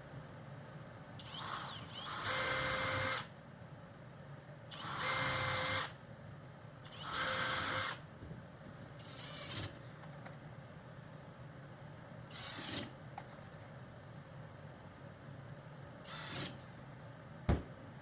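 Power drill driving screws into plywood in six bursts: three runs of about a second or more, then three shorter ones.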